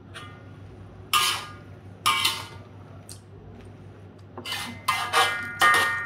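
Steel spatula striking and scraping an aluminium wok while stirring mushrooms, giving ringing metallic clanks: two about a second apart, then a quick run of four near the end.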